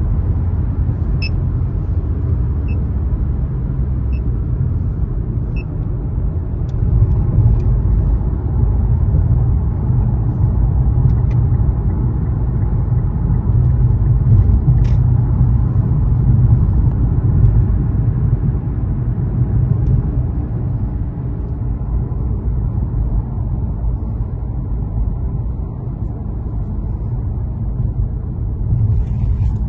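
Steady low rumble of a car driving at freeway speed, heard from inside the cabin: tyre and road noise with the engine running underneath.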